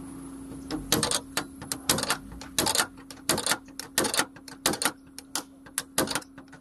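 A brass-headed hand tool on a steel bar working the dented sheet metal at the bottom edge of a car door, giving quick metallic strokes from about a second in, roughly three a second and often in pairs, over a steady low hum.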